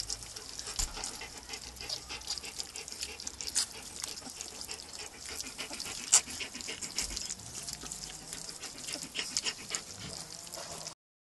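A litter of young puppies eating soft food off a tile: a constant patter of quick, wet smacking and chewing clicks.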